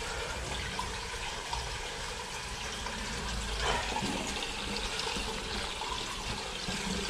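Water running steadily out of a side pipe and splashing onto the floor of a brick storm-water tunnel.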